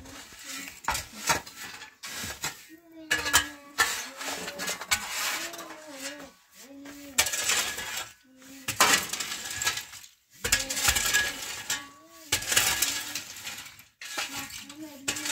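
Metal shovel blade scraping and scooping across a gritty dirt floor, in repeated strokes each lasting about a second, with clinks of metal on stones. Wavering voice-like calls sound between the strokes.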